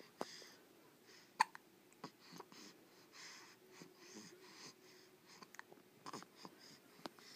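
A baby hiccuping: several short, sharp hiccups spaced a second or more apart, the strongest about a second and a half in, with faint breathy sounds between.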